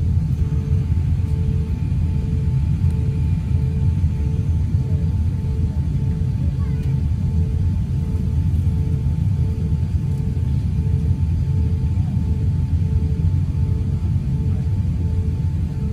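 Steady low rumble inside the cabin of an Airbus A350-900 with its Rolls-Royce Trent XWB engines at idle while the aircraft holds at the runway threshold before the takeoff roll. A faint tone pulses on and off at an even pace over the rumble.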